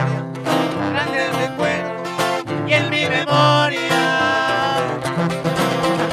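Instrumental break of a sierreño corrido: quick lead runs on an acoustic guitar over a strummed twelve-string guitar and a tuba bass line.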